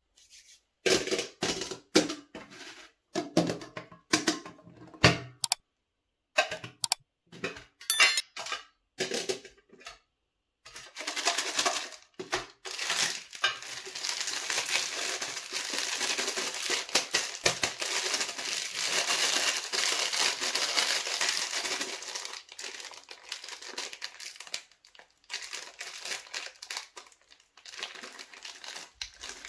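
Round metal M&M's tins being handled and their lids opened, a series of sharp clicks and knocks over the first ten seconds. Then a plastic M&M's candy wrapper crinkles steadily in the hands and is torn open near the end.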